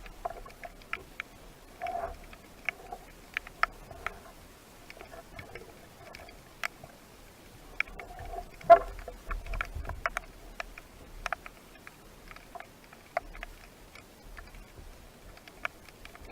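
Underwater ambience: irregular sharp clicks and crackles, with a louder knock near the middle.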